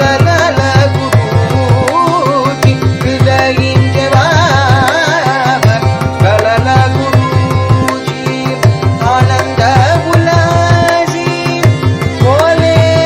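Devotional bhajan music: a harmonium melody and singing over a recorded mridangam rhythm loop with steady, rapid drum strokes. The melody bends and slides in ornamented phrases above a held drone.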